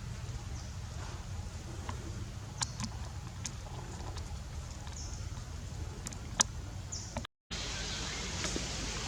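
Outdoor ambience: a steady low rumble with scattered sharp clicks, the loudest about two-thirds of the way through, and a brief drop to silence near the end.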